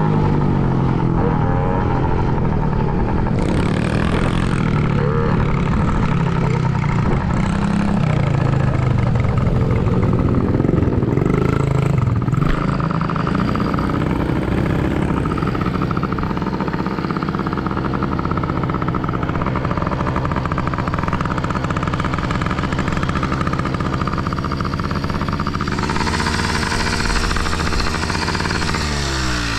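Dirt bike engine revving up and down as the bike is ridden hard around a motocross track. Near the end the bike goes down in a rut, a rush of noise comes in, and the engine revs fall away.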